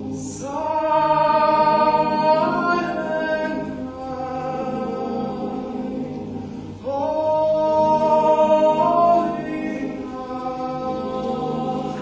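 Male a cappella choir singing sustained chords in close harmony. The upper voices swell in louder about half a second in and again about seven seconds in.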